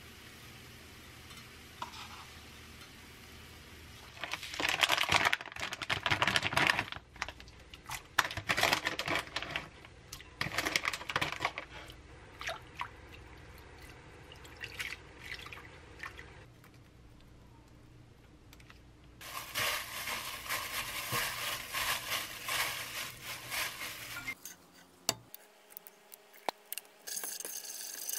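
Kitchen cooking sounds in several short takes: utensils scraping and clicking against a frying pan, and chopsticks swishing noodles in a glass bowl of water. About two-thirds of the way through there are a few seconds of steady hiss.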